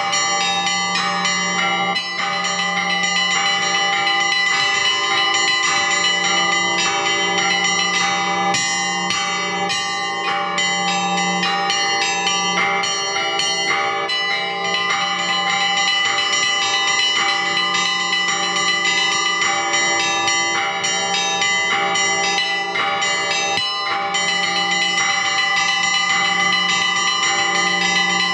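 Russian Orthodox church bells rung together in a continuous full peal. Quick repeated strikes on the small bells ring over the sustained tones of the larger bells, with no pause.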